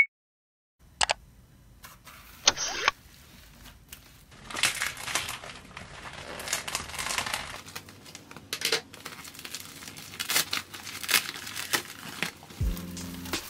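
Plastic bubble mailer and bubble wrap crinkling and rustling as the package is handled and the wrapping pulled out, with a few short rips.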